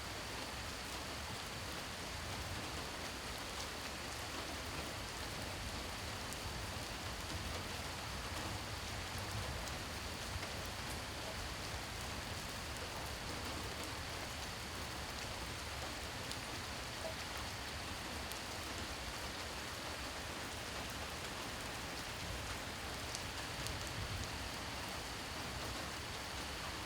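Steady rain falling, an even hiss with scattered drop ticks. A faint, steady high tone runs under it, drops out about twenty seconds in and returns a few seconds later.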